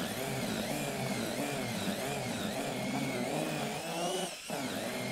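Cordless drill driving a groundbait whisk through a wet groundbait and leam mix in a plastic bucket. The motor whine wavers up and down in pitch as the load changes, with a brief dip about four seconds in.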